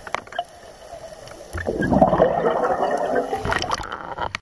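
Water gurgling and bubbling against the camera, swelling loud about one and a half seconds in for a couple of seconds, with a few sharp clicks, then cutting off abruptly.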